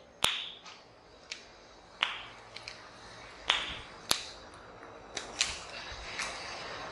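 A handful of sharp clicks and taps at irregular intervals, about seven in all, over a steady faint room hiss.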